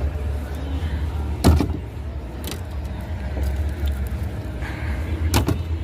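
Steady low rumble, with two sharp knocks, one about a second and a half in and one near the end.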